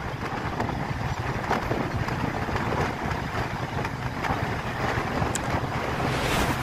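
Passenger train running along the track, heard from an open carriage window: a steady low rumble of the wheels on the rails, with scattered faint clacks and wind rushing past the microphone.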